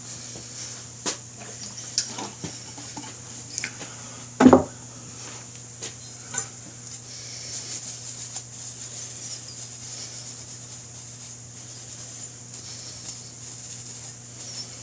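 Metal parts and tools clinking and knocking as they are handled, with the loudest knock about four and a half seconds in, over a steady low hum.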